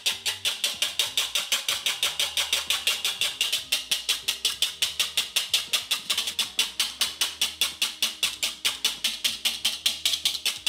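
Balloon whisk beating egg whites by hand in a ceramic bowl: the wires clatter and scrape against the bowl in a fast, even rhythm of about seven strokes a second, whipping the whites toward soft peaks.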